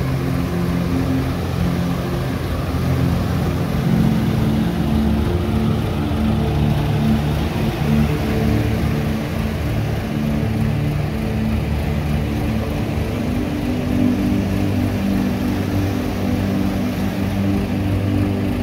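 Motorboat engine running steadily under way, its pitch shifting up and down a little now and then.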